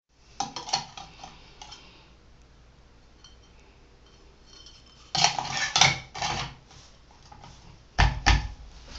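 Metal faucet parts clinking and knocking as they are handled and fitted back together, in three clusters of sharp clicks, the last with a heavier thud near the end.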